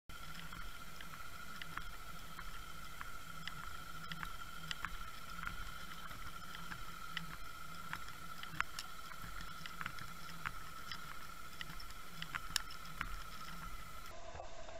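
Underwater sound of a lure being trolled behind a boat: a steady high whine over a low rumble, with scattered sharp ticks. Near the end the whine drops abruptly to a lower pitch.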